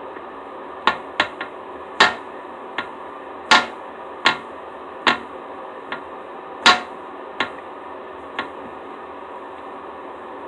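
A series of sharp, irregularly spaced taps or knocks, about a dozen over eight seconds, over a steady background hum.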